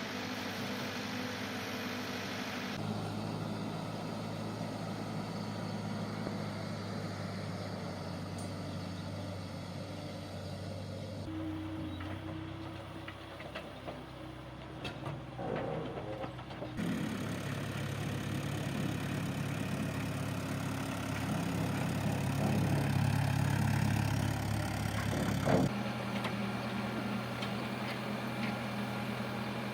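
Diesel engine of a working backhoe loader running, its tone and load shifting, with the sound changing abruptly several times where shots are cut together. A single sharp knock comes near the end.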